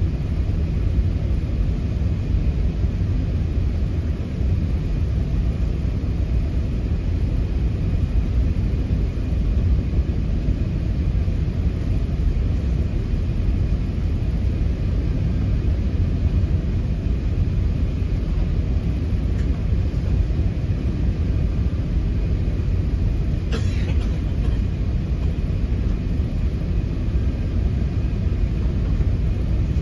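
Steady low rumble of an Airbus A380 cabin on final approach, engine and airflow noise heard from a passenger seat, with a faint steady high tone above it. A short click about 23 seconds in.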